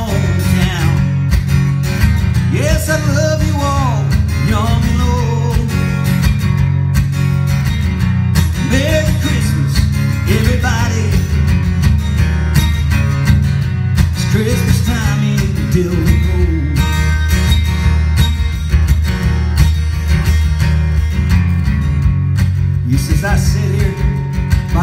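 Acoustic guitar strummed steadily, with a man singing phrases over it.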